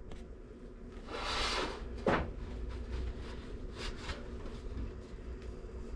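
Kitchen handling sounds: a brief rustle about a second in, then a single knock, with faint clicks and taps after it.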